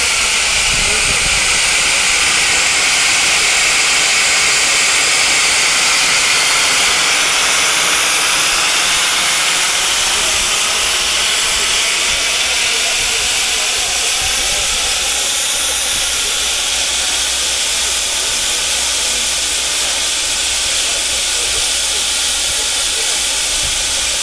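Steam traction engine standing in steam, with a steady loud hiss of escaping steam that eases a little in the second half.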